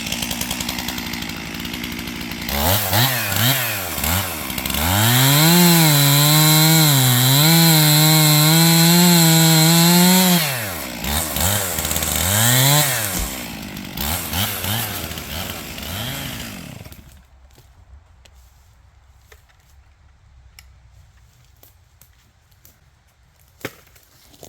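Two-stroke chainsaw idling, revved in a few quick blips, then held at full throttle for about five seconds while bucking the felled tree into logs. It drops back to idle and is shut off about two-thirds of the way in, leaving only faint scattered clicks.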